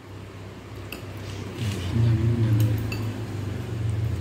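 A metal spoon clinking a few times against a bowl of noodles as it is stirred. A low steady hum swells about halfway through and is the loudest sound.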